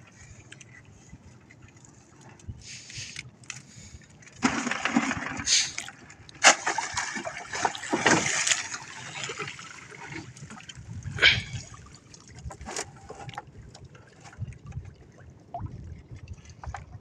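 A folding net trap hauled up out of the sea over a boat's side: from about four seconds in, water splashes and pours off it, with several sharp knocks as it comes aboard. Lighter dripping and knocks follow.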